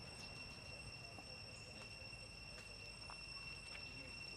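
Faint, steady high-pitched insect drone, one unwavering tone with overtones, over low outdoor background noise, with a few faint ticks.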